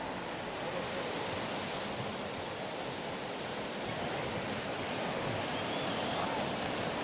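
Running water spraying in a steady rush while a dog is bathed, with a few faint wavering squeaks near the middle and end.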